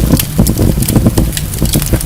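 Wood fire burning in a fireplace, with many quick crackles and pops over a steady low rumble of the flames.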